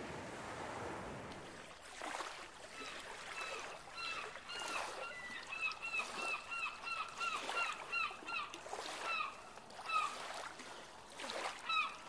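A flock of birds calling: a rapid, overlapping series of short, hooked, honking notes that starts about two and a half seconds in, following a hiss of surf.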